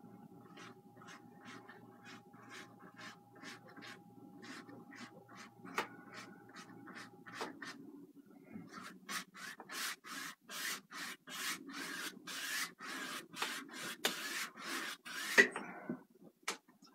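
Bristle paintbrush scrubbing back and forth in short, even strokes, about three a second. The strokes are soft at first and grow much louder from about nine seconds in, then stop shortly before the end.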